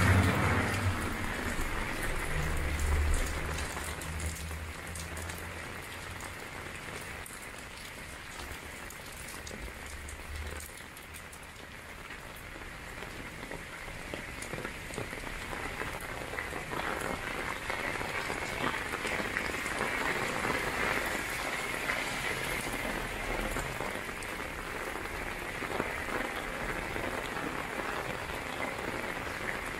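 Heavy downpour pattering on an umbrella overhead and splashing on wet pavement, the rain getting louder about halfway through. A low rumble in the first few seconds fades out by about ten seconds in.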